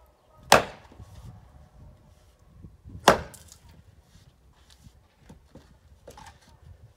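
Axe chopping firewood on a chopping block: two sharp blows into the wood about two and a half seconds apart, followed by fainter knocks near the end.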